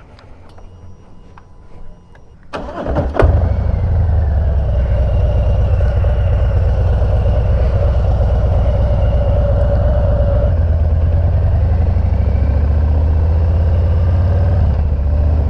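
Harley-Davidson V-twin motorcycle engine starting about two and a half seconds in, catching after a brief crank, then running steadily and loud as the bike rides off.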